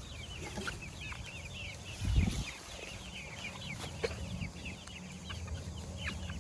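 A flock of young pullets peeping continuously in short falling chirps, with a dull low thump about two seconds in.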